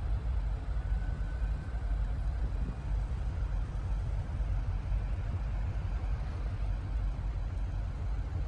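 Steady low engine rumble with an even rushing noise over it.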